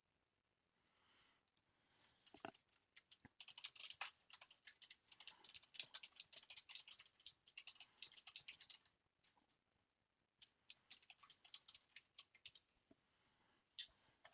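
Computer keyboard typing, faint: a long run of rapid keystrokes, a short pause, then a second shorter run, with one last key press near the end.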